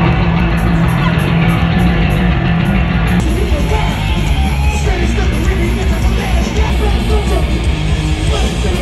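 Heavy metal music played loud, with electric guitars.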